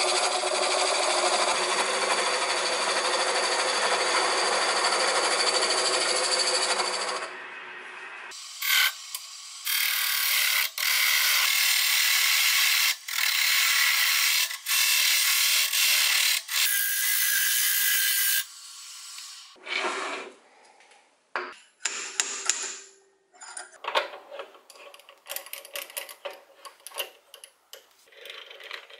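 Hand-held turning gouge cutting a spinning wooden blank on a wood lathe, a loud even hiss of shavings peeling off in long passes with short breaks. In the last ten seconds come scattered metal clicks and rattles as a four-jaw lathe chuck is handled and tightened with its chuck key.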